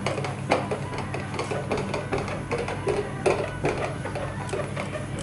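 Rupes LHR 15 random-orbital polisher running steadily, its foam pad working polish over car paint during paint defect correction, with irregular clicks and knocks over the motor hum.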